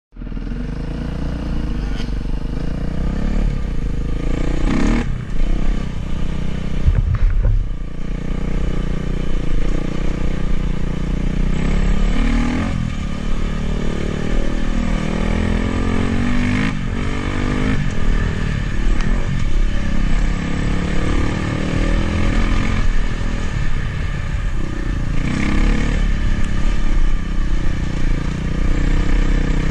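Dirt bike engine running under way on a rough dirt trail, its pitch rising and falling again and again as the throttle opens and closes.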